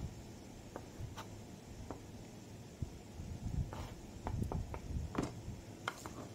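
Kitchen knife chopping sliced ham on a cutting board: irregular knocks of the blade on the board, a few at first and coming thicker in the second half.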